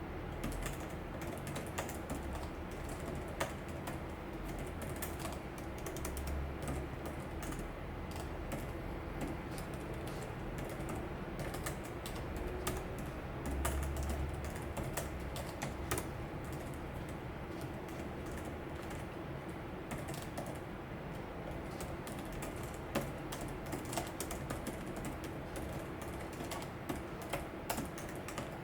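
Typing on a Logitech ERGO K860 ergonomic keyboard: a continuous, irregular run of key presses. The shallow-stroke keys make a relatively quiet clicking.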